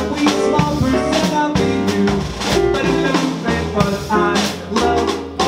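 Male jazz singer singing a swing song with a live trio of piano, upright bass and drums.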